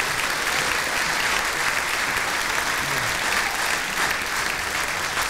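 Audience applauding: dense, steady clapping from a large hall crowd.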